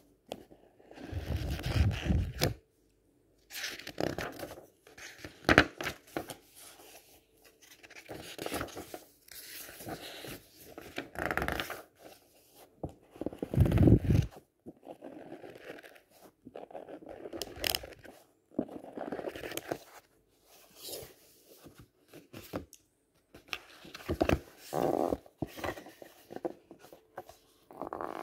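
Paper pages of paperback books being flipped and riffled quickly by hand, in bursts of rustling a second or two long with short pauses and a few sharp page snaps.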